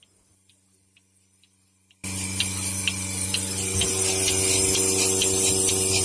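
Near silence for about two seconds, then a sudden jump to a portable bucket milking machine running: the steady hum of its vacuum pump, with the pulsator on the milk can's lid clicking about three times a second.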